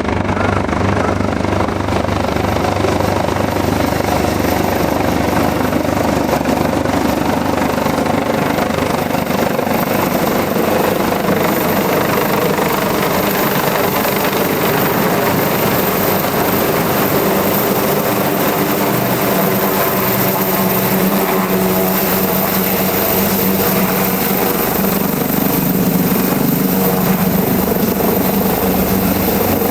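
Leonardo AW189 twin-turbine helicopter running, loud and steady: rotor and engine noise with a thin high whistle.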